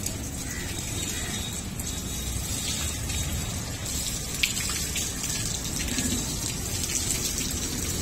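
Water from a running hose splashing over a water buffalo's head and face as it is washed, a steady spatter with a few sharper splashes.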